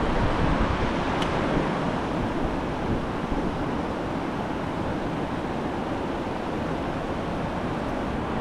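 River rapids rushing steadily over boulders close by: a constant noise of moving water.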